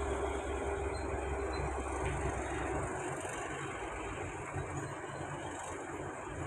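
Steady running of heavy machinery, with a constant hum over a broad rumble; the deepest part of the rumble drops away about three seconds in.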